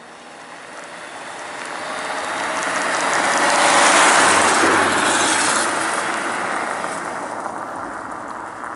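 A car passing on a snow-covered road: the noise of its tyres on the snow and its engine swells as it approaches, peaks about four seconds in as it goes by, then fades as it drives away.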